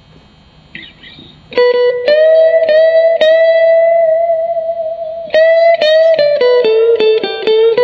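Electric guitar played clean through a Fender Blues Junior IV tube combo amp. A note is bent up and held, picked again several times, then comes a quick descending run.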